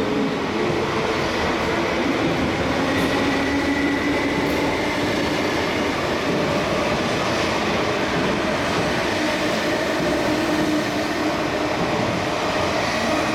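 MTR East Rail Line electric train running past along the platform: a steady rumble of wheels on rail and running gear, with a faint whine from the motors in it.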